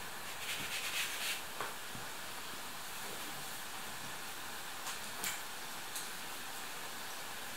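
Curd-cheese dough rings frying in hot oil: a steady sizzling hiss. There is a short clatter of light ticks about a second in and a few single clicks later.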